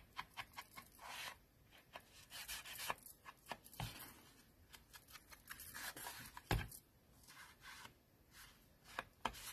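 Faint dabbing and rubbing of a small ink applicator along the edges of a watercolour card panel, with light taps and paper handling. Two slightly louder knocks come about four and six and a half seconds in.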